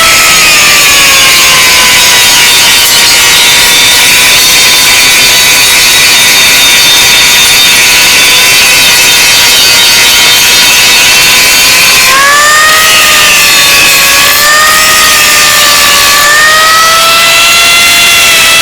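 Side grinder (angle grinder) running and grinding: a motor whine over a harsh grinding hiss. The whine sinks slightly in pitch at first and holds steady, then about twelve seconds in rises and wavers up and down.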